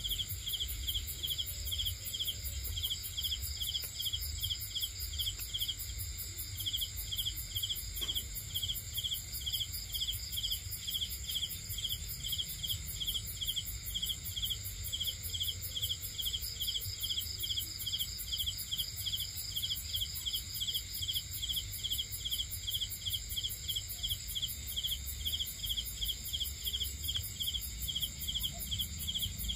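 Night chorus of crickets and other insects: several steady high trills at different pitches overlapping, one of them pulsing a few times a second without a break.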